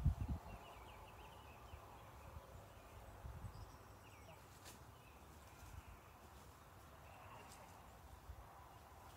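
Faint open-air ambience with scattered short bird chirps, and low gusts of wind rumbling on the microphone, strongest at the very start; a couple of brief faint ticks.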